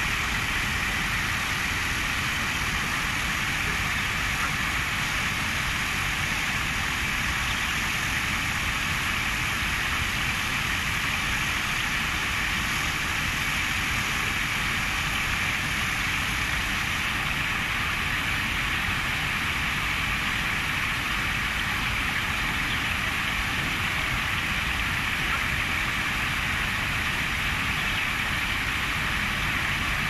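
Small stream flowing and bubbling steadily over its bed.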